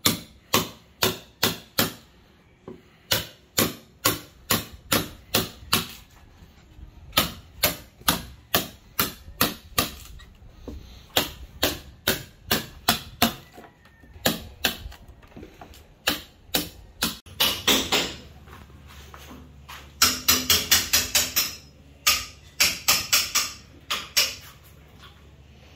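Claw hammer striking a wood chisel to carve a groove into a driftwood log slab: sharp, evenly paced strikes about two a second, with a quicker run of strikes near the end.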